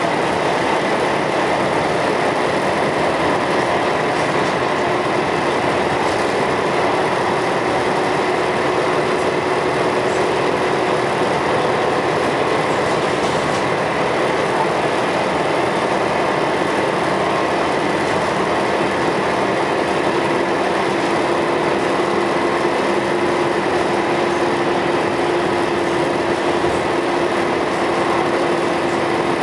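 Scania L113CRL bus's six-cylinder diesel engine running steadily, with a faint steady whine over the engine noise.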